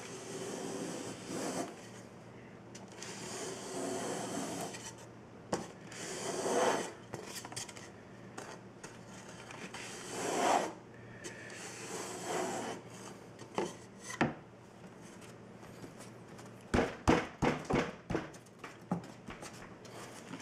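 A flat piece of wood rubbed in repeated strokes across a vinyl liner, smoothing it into place. Near the end comes a quick run of sharp knocks and taps.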